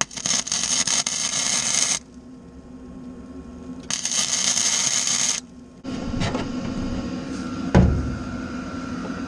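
Wire-feed (MIG) welder arc crackling in two bursts, about two seconds and then a second and a half long, laying tack welds. A single thump follows near the end.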